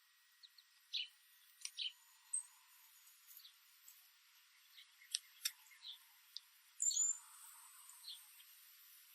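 Backyard songbirds chirping: scattered short, high chirps and call notes, with a louder cluster and a short falling whistle about seven seconds in.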